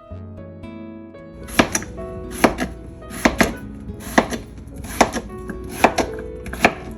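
A knife chopping through raw white yam onto a cutting board: seven sharp, evenly spaced chops a little under a second apart, starting about one and a half seconds in.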